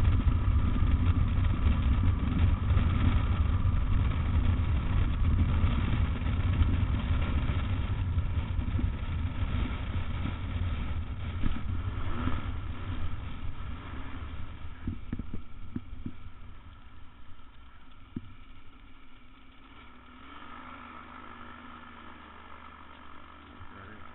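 The trike's Rotax 912 flat-four engine and the rush of air run loud through the final approach, then drop to a quieter idle hum as the trike lands and rolls on grass. A few short knocks come as the wheels bump over the ground.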